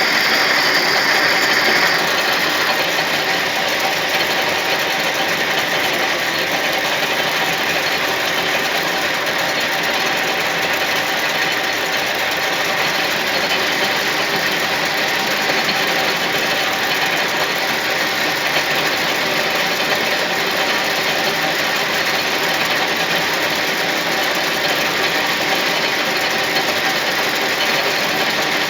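Lathe running steadily, motor and gearing giving an even mechanical hum with a hiss over it. A louder, higher layer of noise stops about two seconds in.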